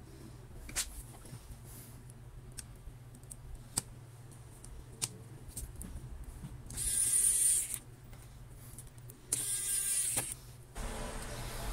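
Screwdriver driving screws into a laptop's metal display hinge on the lid: two noisy bursts of about a second each, a little past the middle, and another starting just before the end. Before them come small clicks and taps of the parts being handled.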